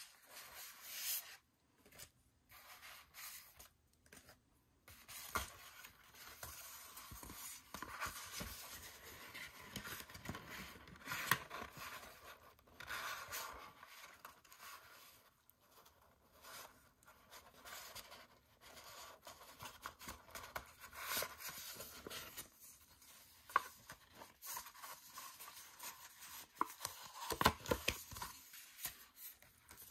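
Album photobook pages and a paper CD sleeve being handled: irregular paper rustles and scrapes as pages are turned and a CD is slid out of its sleeve, with a few sharper clicks and taps.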